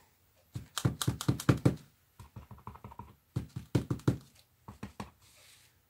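Clear acrylic stamp block tapping and knocking in quick runs of strikes as a leaf stamp is inked and pressed onto cardstock.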